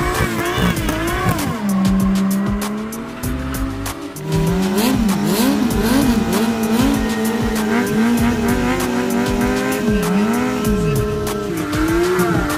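Engines revving hard during tyre-smoking burnouts, with the pitch swinging up and down over and over and the spinning tyres hissing and squealing. The sound drops about four seconds in, then picks up again with another vehicle.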